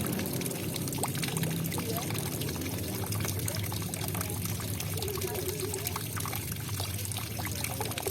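Water trickling and splashing in a steady, continuous babble. A short, faint wavering tone rises over it about five seconds in.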